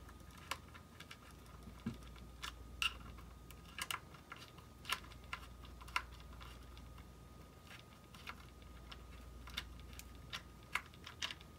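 Faint, irregular light clicks and taps of a small screwdriver and fingers working the Hubsan Zino drone's plastic body shell while its screws are tightened down.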